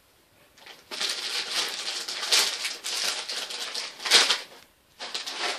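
Rustling, scraping handling noise of a hand moving against the phone and the recording device close to the microphone, starting about a second in, with two louder scrapes.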